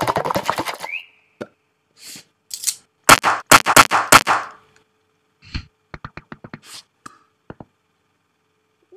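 Home-made sound effects dubbed onto a cartoon: a fast run of taps with a short rising squeak about a second in, a few loud sharp thumps around three to four seconds in, then a scattered run of light clicks.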